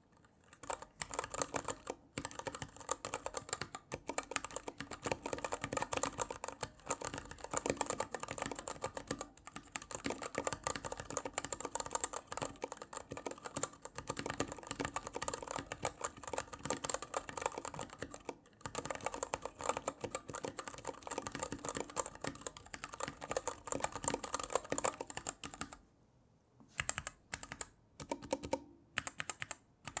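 Fast typing on a KBDFans NIU Mini 40% ortholinear keyboard with Zealios 67g tactile switches and DSA PBT keycaps: a dense run of key clacks with a few brief pauses, slowing near the end to a handful of single keystrokes.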